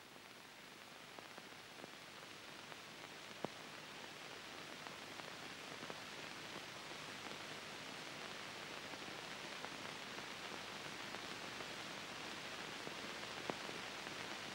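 Steady hiss of an old film soundtrack that slowly grows louder, with a few faint clicks.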